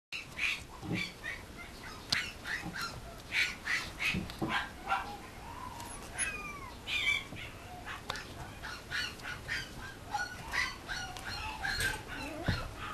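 A Mame Shiba puppy chewing and worrying a plush toy, with a steady run of short, high, honk-like squeaks, two or three a second, and one longer falling squeal about halfway through.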